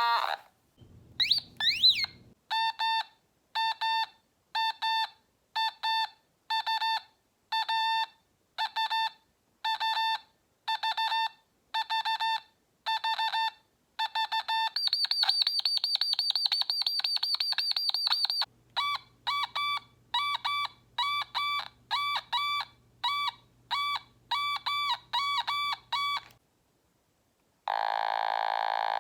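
Otamatone imitating a series of electronic sound effects. A brief pitch glide leads into a long run of short, evenly repeated beeps, then a fast warbling tone. More repeated beeps follow at a slightly different pitch, and near the end a steady held tone sounds.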